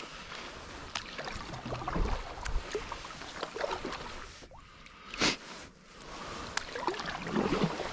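Kayak paddle strokes in river water: irregular dips, swishes and drips, with small knocks, the loudest splash about five seconds in.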